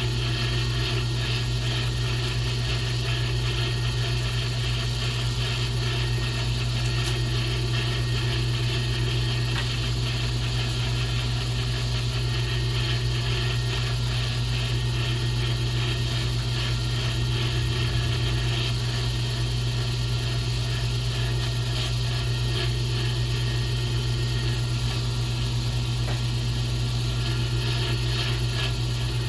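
Small wood lathe running steadily with a low, even hum, as turned pen blanks spin while being sanded and polished.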